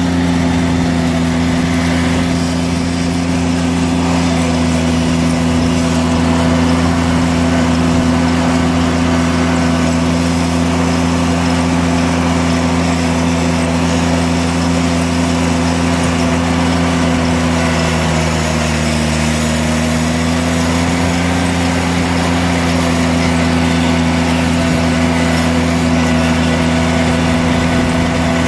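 John Deere 322 lawn tractor's three-cylinder engine running steadily under way. Its pitch dips slightly for a couple of seconds about two-thirds through, then comes back up.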